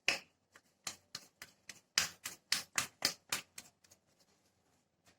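Quick, irregular light clicks and taps, about a dozen over four seconds, from hands working a ball of rice-flour dough with the rolling board and pin at hand.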